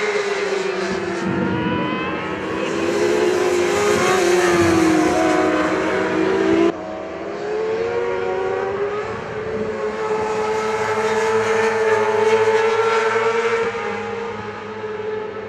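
Supersport racing motorcycles at high revs passing in a pack, their engine note falling as they go by. A sudden cut about seven seconds in, then the engines rise and hold a high, steady note.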